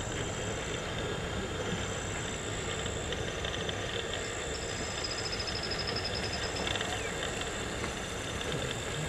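Engines of open Maruti Gypsy safari jeeps running as they drive slowly along a muddy forest track, a steady low engine noise. Insects buzz high and thin throughout, and a short high trill sounds about halfway through.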